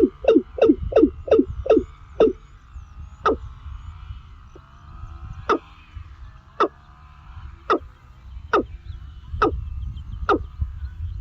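A bird calling in a series of short, harsh calls. They come about three a second at first, slow down by about two seconds in, then repeat roughly once a second. Fainter chirping from other birds or insects sits behind them.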